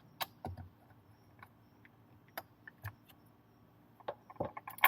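Scattered small clicks and taps of hard parts and tools being handled while working on the RC car's gear mesh, a few at a time, with a quick cluster near the end ending in one sharper click.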